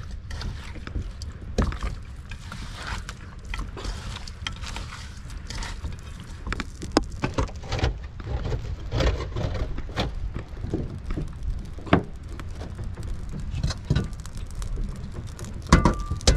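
Irregular knocks and clatter of work aboard a fishing boat, over a steady low rumble.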